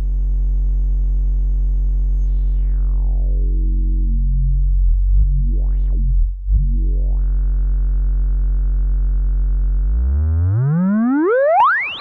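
Eowave Weather Drones 1.5 Eurorack synth voice playing a steady low drone. Its low-pass filter closes slowly until the tone turns dull, then reopens. Over the last two seconds a resonant filter peak sweeps upward into a bright rising whistle.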